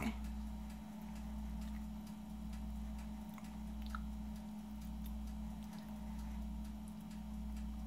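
Quiet kitchen room tone: a steady low hum that swells and dips about once a second, with a few faint ticks.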